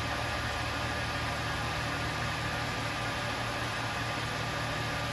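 Tormach 770 CNC mill running steadily at the start of a program: a constant machine hum with a faint steady whine and hiss.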